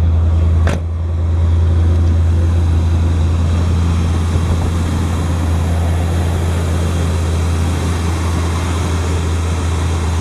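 Chevy dually's 454 big-block V8 idling steadily as it warms up on a fresh thermostat and topped-off coolant. A single sharp knock sounds less than a second in.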